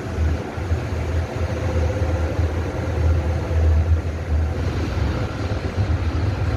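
Moving escalator running steadily: a low, continuous rumble with a faint steady hum over it.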